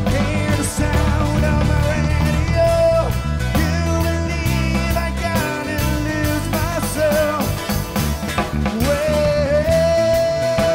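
Instrumental break of a rock song: drums and bass keep a steady beat under a wavering lead melody line that ends on one long held note.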